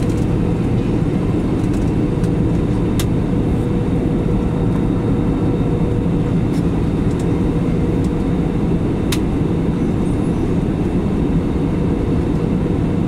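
Jet airliner cabin noise at cruise, heard from a window seat: a steady rumble of turbofan engines and airflow with a faint steady hum. A couple of faint clicks come about three seconds and about nine seconds in.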